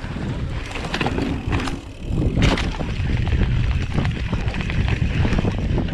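Giant Trance mountain bike riding down a dry dirt trail: a steady rumble of wind and tyre noise on the microphone, with the bike rattling and knocking over bumps, a few sharp knocks in the first half.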